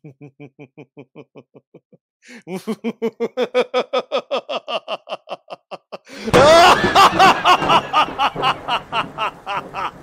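Staged horror-style laughter in quick pulses, about six a second, faint at first and louder from about two seconds in. About six seconds in a loud, dense wash of sound comes in, and the laughter goes on over it.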